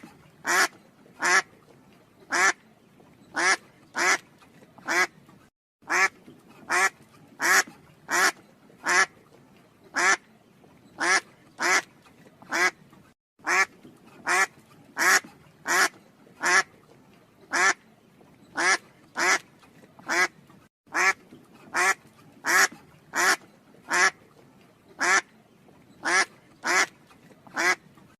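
Duck quacking over and over in loud, short, sharp calls, about three every two seconds, with a brief pause every seven or eight seconds.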